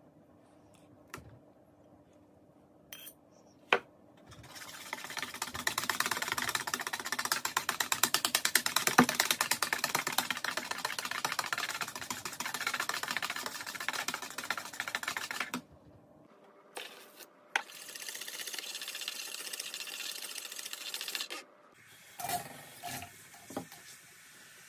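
A wire whisk beating a creamy mixture fast in a plastic bowl, the wires making a rapid, even clatter against the bowl. It stops briefly, resumes a little quieter, and then gives way to a few knocks near the end.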